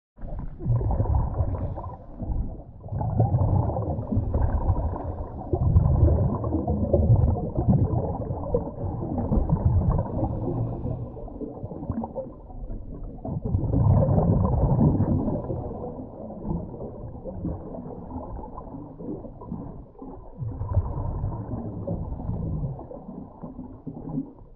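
Scuba diver breathing through a regulator underwater: exhaled air bubbles out in muffled, low gurgling rumbles that swell every few seconds.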